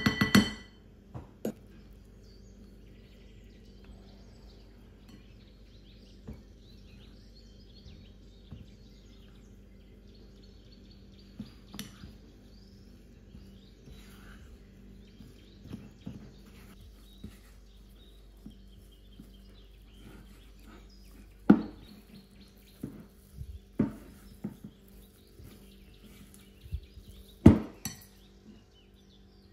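Silicone spatula stirring flour into a wet cookie dough in a glass mixing bowl: soft scraping and mixing, with ringing clinks of the spatula against the glass at the start and a few sharper knocks against the bowl in the last third.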